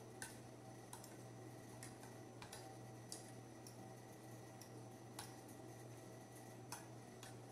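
Faint clinks of a metal spoon and fork against a ceramic bowl, about eight light taps scattered a second or so apart, over a steady low hum.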